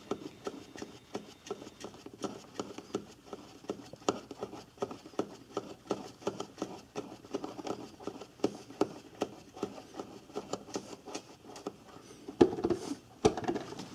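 Socket ratchet clicking quickly and unevenly while a bolt holding down a plastic air cleaner box is run in, with two louder knocks near the end.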